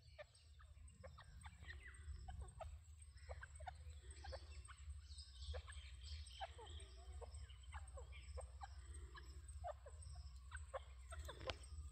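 Faint, scattered short calls of francolins (teetar): many brief notes at irregular intervals over a steady low rumble.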